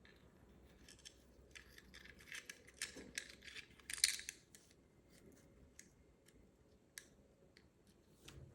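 Small clicks and scrapes of 3D-printed plastic headphone parts being handled and fitted together, thickest two to four seconds in with a sharper click about four seconds in, then scattered single ticks.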